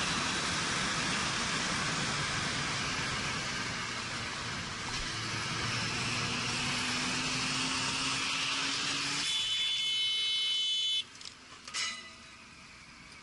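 Wind rush and road noise heard from a moving motorcycle, with a faint engine note rising slowly in pitch. Near the end a shrill tone sounds for about a second and a half, then the sound drops away to a faint hush, broken once by a click.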